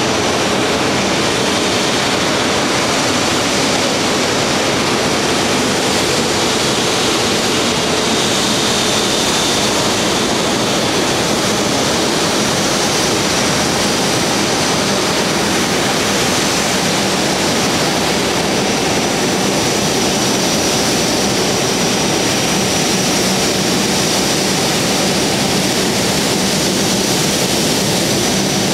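Airbus A380's four Rolls-Royce Trent 900 turbofan engines running at taxi power as the airliner taxis, a steady loud jet rush with a faint high whine over it from about halfway through.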